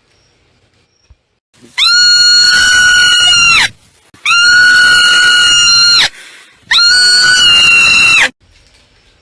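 Marmot screaming: three long, loud calls of about two seconds each, held at a steady high pitch with short pauses between them.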